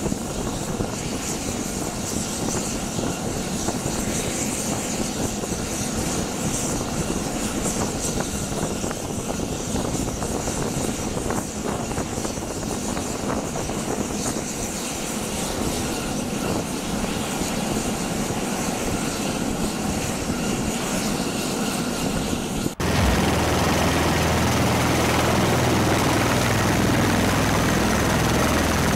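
Bell Boeing V-22 Osprey tiltrotor running on the ground, its turboshaft engines and slowly turning proprotors making a steady rushing noise. About 23 s in it cuts sharply to louder, deeper engine and rotor noise with a steady low hum, from Ospreys with rotors spinning.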